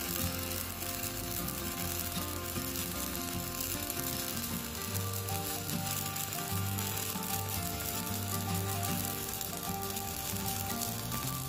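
Stick (MMA) welding arc crackling steadily as a 4.0 mm electrode burns, run from a Poney MMA 200E mini inverter welder.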